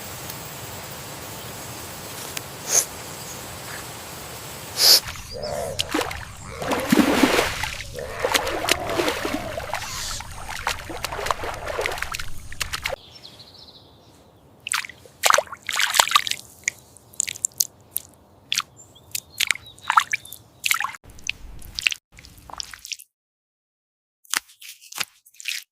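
Water in a flooded paddy: a steady running-water hiss, then several seconds of sloshing and splashing, giving way to scattered drips and wet splats with quiet gaps between them.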